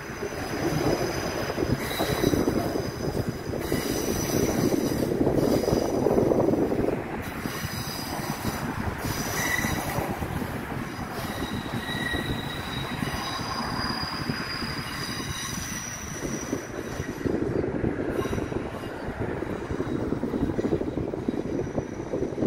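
Passenger train running over the tracks and points, its wheels squealing in thin, steady high tones that come and go over the rumble of wheels on rail.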